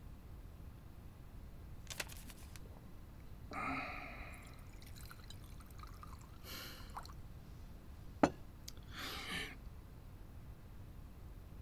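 Quiet room with a few faint, short sounds of drinking from small porcelain cups. There is a soft breath about three and a half seconds in, a single sharp clink a little after eight seconds, and a brief splash of liquid being poured about a second later.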